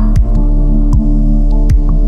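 Electronic music: a steady low synth drone with a deep kick drum hitting about every three-quarters of a second and light clicking percussion.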